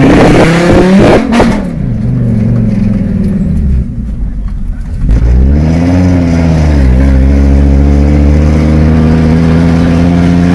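Fiat Marea HLX's five-cylinder engine running loud with no exhaust silencer, heard from inside the moving car. The revs climb steeply and fall away at the start, the engine eases off for about a second in the middle, then pulls again with a brief dip in pitch and settles to a steady run.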